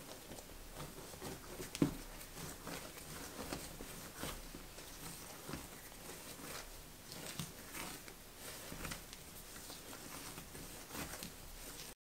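Hand-kneading of bread dough on a stone countertop: an irregular run of soft pats, squishes and taps as the dough is stretched and pressed, with one louder thump about two seconds in. The sound cuts off just before the end.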